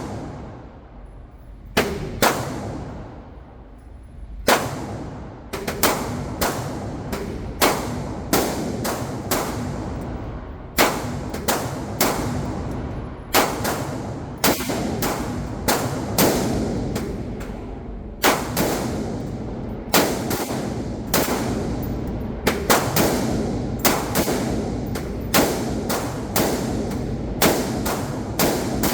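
Dozens of gunshots at a shooting range, fired at an uneven pace, about one to two a second and sometimes in quick pairs. Each crack rings out and fades before the next.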